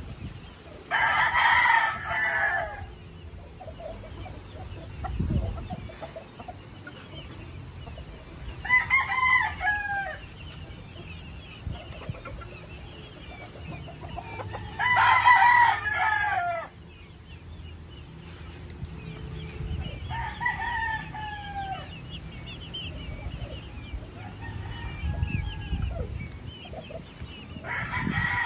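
Gamefowl roosters crowing over and over, about five long crows a few seconds apart, each falling in pitch at the end, with faint short chirping in between.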